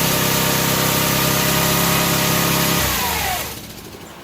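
The cart's engine, its governor removed, racing at high speed with the throttle running away. The cause is the carburetor's missing throttle adjustment screw, spring and O-ring. About three seconds in it cuts out, its pitch falling away as it dies.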